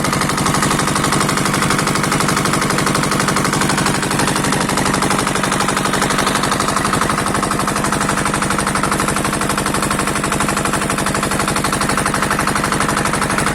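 Small boat engine running steadily at speed with a rapid, even beat.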